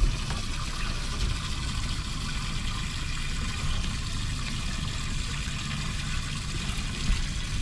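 Steady trickle of water with a low rumble underneath.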